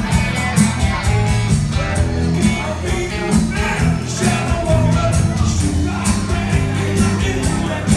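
Rock band playing live: electric guitar, acoustic guitar, electric bass and drums, with a steady drum beat and a strong bass line.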